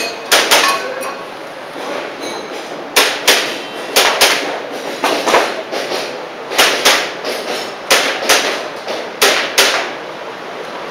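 Airsoft pistol firing a string of sharp shots, mostly in quick pairs of double taps, with short pauses between the pairs.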